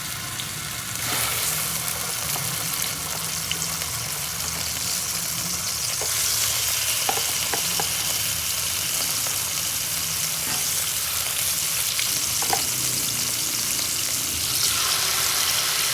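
Chicken pieces searing in hot oil in a pan, a steady sizzle that grows louder about a second in and again around six seconds in, with a few light clicks.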